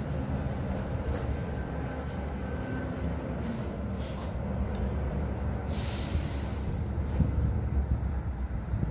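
Steady low rumble of heavy road traffic, with a short hiss about six seconds in.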